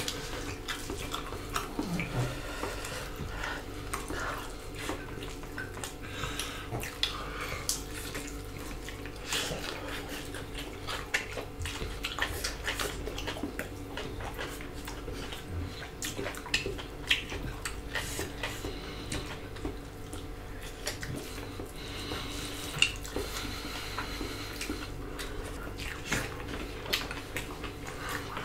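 Close-miked eating by hand: fingers pressing and mixing rice and fish against ceramic plates, with wet chewing and mouth sounds in small irregular clicks, over a steady faint hum.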